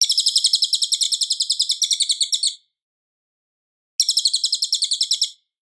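Cililin song: a loud, fast, high-pitched trill of rapidly repeated notes, about ten a second, lasting about two and a half seconds, then after a short pause a second, shorter trill of the same kind.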